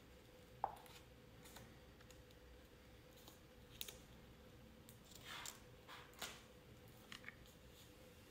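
Book pages and loose paper sketches being turned and handled: faint paper rustles and a few small sharp ticks, the sharpest about half a second in, over a faint steady hum.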